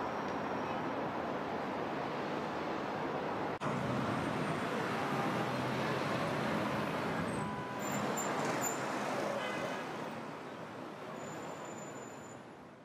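Steady roar of heavy road traffic: cars, vans and motor scooters running in dense city traffic. A short break comes about three and a half seconds in, a brief pitched tone rises above the traffic around eight to nine seconds in, and the sound fades out near the end.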